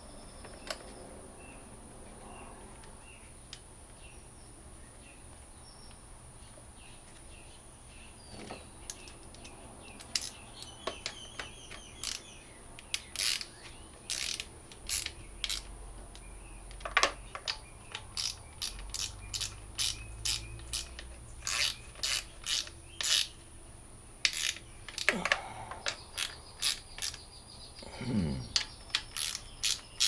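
Ratchet wrench clicking in quick runs of strokes, tightening a fastener back down on a generator's alternator end. The first few seconds are quiet and the clicking starts about ten seconds in.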